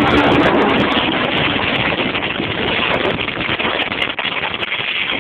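Piaggio Liberty 50 scooter running with a burst exhaust, a loud dense crackling noise mixed with wind on the microphone.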